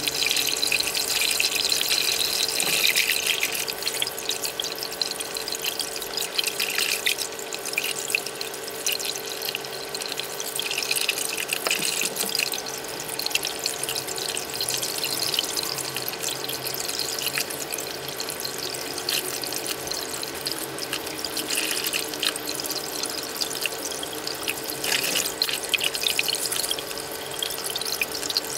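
Kitchen tap running in a thin stream over young ginger roots as hands rub and rinse them, water splashing and trickling into the bowls in the sink; a little louder for the first few seconds. A faint steady hum sits underneath.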